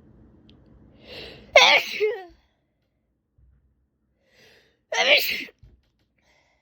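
A woman sneezing twice, about three seconds apart. Each sneeze starts with a short breath in and ends in a sharp, loud burst.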